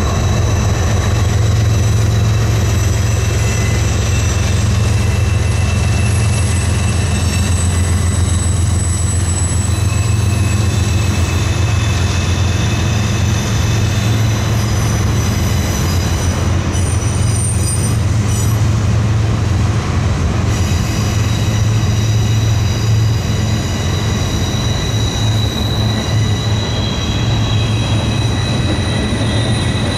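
Steam train hauled by C&O 1309, a 2-6-6-2 articulated steam locomotive, rolling past: a steady low rumble from the locomotive and cars, with several high, held squeals from the wheels.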